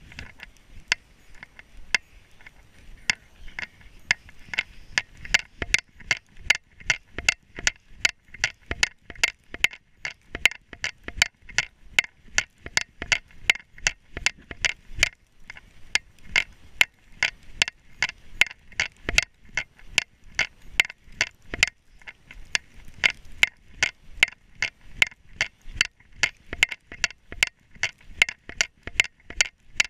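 Footsteps in snow, a quick, even rhythm of about three steps a second, with a brief pause about halfway through.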